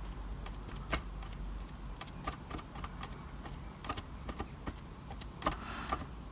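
A paint sponge dabbed repeatedly against the embossed plastic brick wall of a model house, giving irregular light taps and clicks over a steady low hum.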